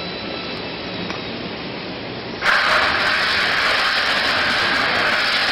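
Rotating stainless steel peanut coating pan running empty with a steady machine noise; about two and a half seconds in, peanuts are poured in and a much louder, steady rushing rattle of nuts tumbling against the steel pan takes over.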